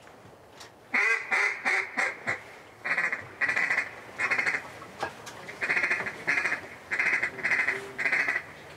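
A series of loud, nasal duck quacks: a quick run of about five about a second in, then spaced single quacks, about a dozen in all.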